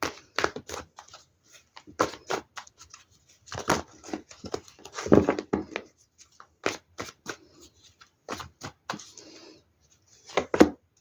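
A deck of tarot cards being shuffled and cards drawn and laid down: a run of sharp flicks and slaps, with short stretches of rustling as the cards slide together.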